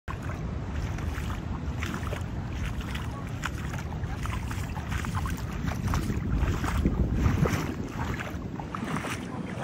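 Wind buffeting the phone microphone in a steady low rumble, over small ripples lapping and splashing at a sandy water's edge.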